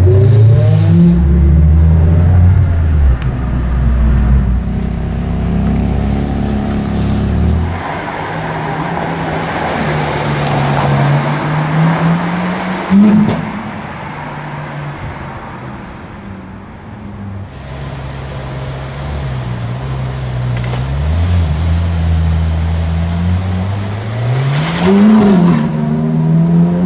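Ferrari sports car engines, including an F430 and a 458 Italia V8, running on a street with their pitch rising and falling under throttle. The sound changes abruptly about eight and seventeen seconds in, and a short, sharp rev comes near the end.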